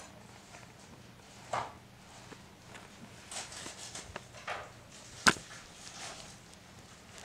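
A cat batting at a handheld camera: soft scattered rustles and bumps of paw and fur against the camera, with one sharp knock about five seconds in.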